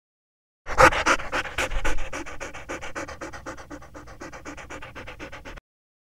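Golden retriever panting rapidly, about six breaths a second, loudest at first and gradually fading before cutting off suddenly near the end.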